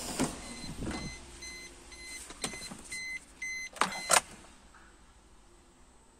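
Sound effects of an animated logo intro: mechanical whirs and whooshes, a run of short electronic beeps about two a second, and two sharp hits about four seconds in.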